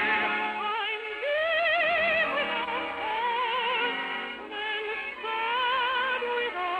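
An operatic voice sings long held notes with wide vibrato over an orchestra, in an operetta duet. The sound has the narrow, dull quality of an old radio recording.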